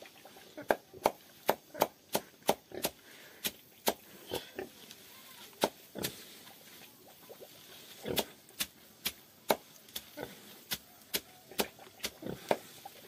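A knife chopping a heap of leafy greens for pig fodder: sharp chops about two or three a second, pausing for about two seconds midway.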